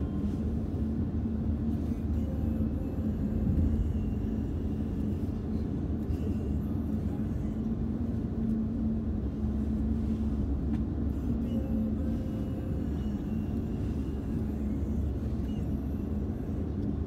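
A car driving, heard from inside the cabin: a steady low rumble of engine and road noise with a constant hum underneath.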